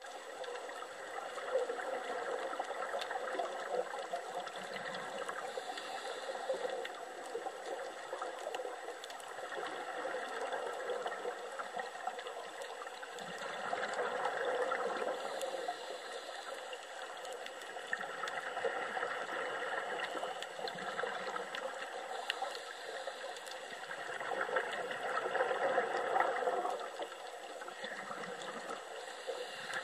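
Underwater water noise picked up by a camera in its housing: a steady bubbling hiss that swells and fades every few seconds, with faint scattered clicks.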